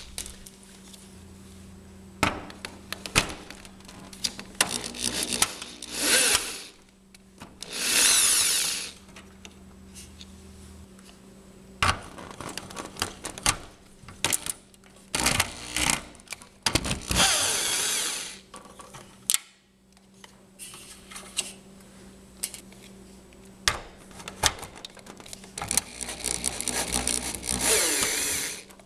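Power drill running in about four short bursts of roughly a second each, backing bolts out of a garage door hinge. Short clicks and knocks of bolts and metal parts fall between the bursts.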